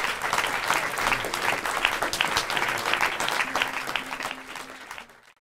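Audience clapping, a dense patter of many hands that fades out and cuts off near the end.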